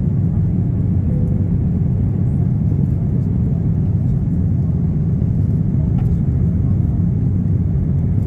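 Cabin noise of an Airbus A320 in its initial climb just after liftoff: a steady low rumble of the engines and rushing air, heard from a window seat over the wing.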